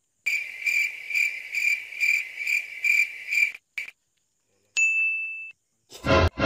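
Cricket chirping sound effect: a high chirp repeated a little over twice a second for about three seconds, cutting off abruptly. A short high ding follows, then a loud burst of sound near the end.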